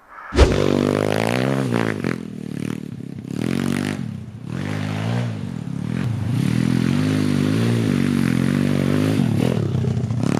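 MRF 140 RC pit bike's single-cylinder four-stroke engine being ridden, after a brief knock at the start. Its revs rise and fall several times, then hold higher for a few seconds before dropping near the end.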